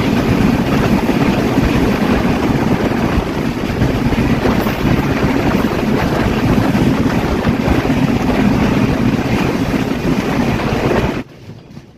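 Loud rush of wind buffeting the microphone, mixed with the running noise of an intercity passenger train travelling fast, heard from a camera held outside the coach. The noise drops off abruptly about a second before the end.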